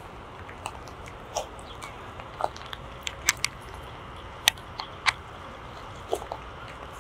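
Watermelon leaves and vines being lifted and turned by hand, giving scattered crisp crackles and clicks at irregular intervals over a steady low hiss.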